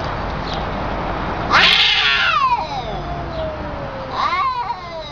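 Cat yowling at a rival in an aggressive standoff: a long, wavering caterwaul about a second and a half in that slides down in pitch, then a second yowl near the end that rises and falls.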